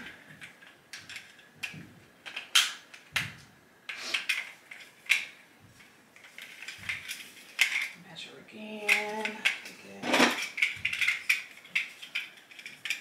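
Plastic links of an APzek weighted smart hula hoop clicking and clattering as they are handled and snapped together, in irregular sharp clicks with a louder one about 2.5 s in and another about 10 s in.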